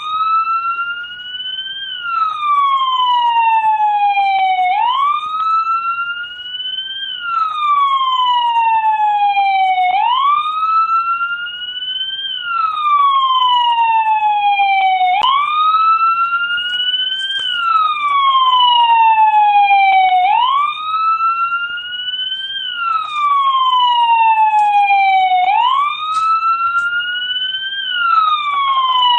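American police car siren sounding a slow wail: the pitch jumps up, climbs to a peak, then slides slowly back down, repeating about every five seconds.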